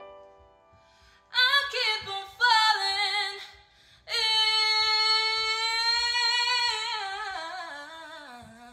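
A woman singing solo with no accompaniment: a soft opening note, two short loud phrases with vibrato, then a long held note that slides down through wavering runs and fades away.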